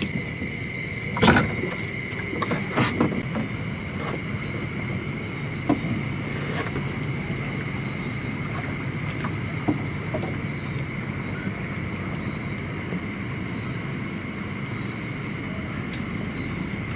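A small boat's motor runs steadily under a constant high drone of night insects. There are a few sharp knocks in the first ten seconds, the loudest about a second in.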